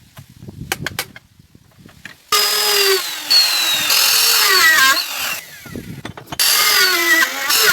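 A handheld power tool, such as a drill, cutting into wood in two loud runs, its whine dropping and wavering in pitch as it loads up, after a couple of seconds of light knocks from handling the workpiece.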